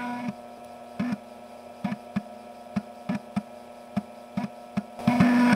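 External USB floppy disk drive reading a 3.5-inch disk: the head stepper clicks and buzzes in short bursts at irregular intervals over a steady hum, with a longer, louder buzz near the end.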